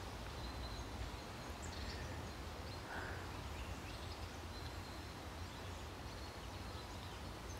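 Quiet outdoor ambience: a steady low rumble under an even hiss, with a few faint, brief bird chirps.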